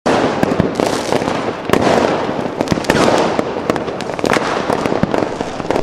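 Fireworks going off: many sharp pops and crackles from bursting shells, one after another, over a steady wash of noise.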